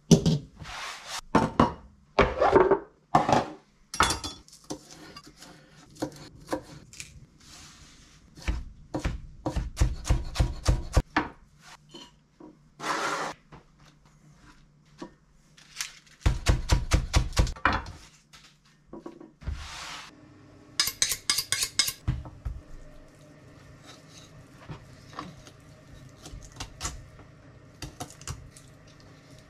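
Kitchen prep on a plastic cutting board: a few clatters of a container and utensils being handled, then two quick runs of rapid chopping strokes as a chef's knife cuts sea kale. Quieter knife work follows on raw chicken, with faint ticks and scrapes.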